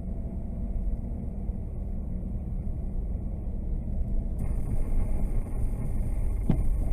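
Steady low rumble of a car's engine and its tyres on a snowy road, heard from inside the cabin by a dashcam. About four seconds in it turns hissier, and near the end a brief falling tone sweeps down.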